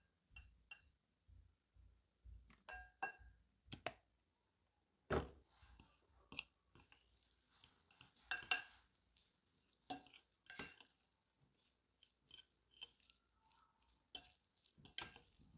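Metal fork clinking and scraping against a glass bowl while mixing flaked tuna with olive oil: irregular light taps with a few sharper clinks.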